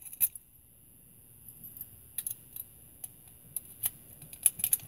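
Scattered small, sharp metallic clicks and clinks from a Weiser-type deadbolt's lock cylinder and tailpiece being handled and worked after rekeying and lubrication.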